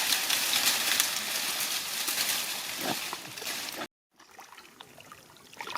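Shallow water sloshing and splashing, with small clicks and knocks in it; it cuts off suddenly about four seconds in.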